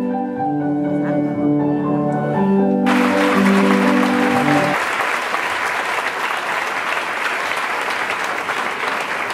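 Music with held chords ends a dance number, and audience applause breaks out about three seconds in, carrying on after the music stops near the middle.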